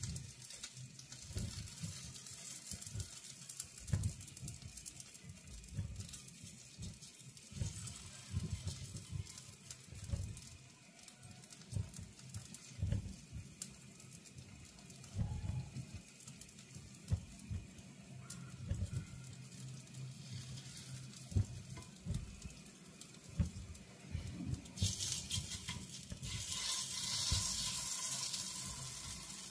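Spoon scraping and tapping against a steel bowl and an appe pan as sabudana batter is dropped into the pan's cavities. Hot oil starts sizzling under the batter, turning into a loud steady sizzle near the end.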